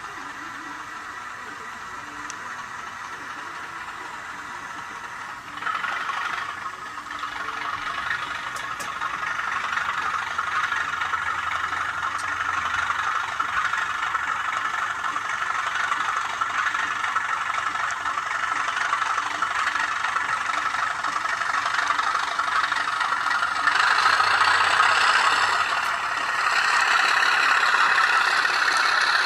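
A DCC sound decoder plays a diesel locomotive engine sound through a small speaker on an N gauge model. The sound steps up in revs about five seconds in and rises again near the end.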